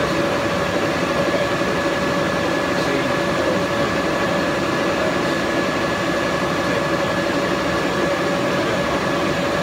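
76-inch Bullard vertical turret lathe running with its table rotating: a steady mechanical drone from the drive and gearing, with a steady whine over it.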